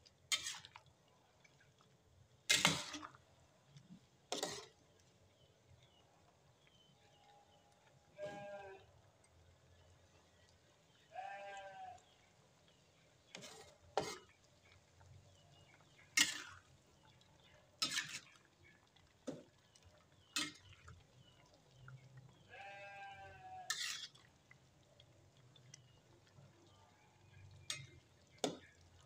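Metal ladle knocking against a metal cooking pot at irregular intervals while stirring, about a dozen sharp clanks. A goat bleats three times in the background, each call wavering, at about a third of the way in, shortly after, and past the middle.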